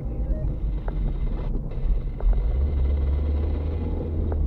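Car driving slowly on a rough unpaved road, heard from inside the cabin: a steady low rumble of engine and tyres with a few light knocks. A low engine drone grows steadier about halfway through.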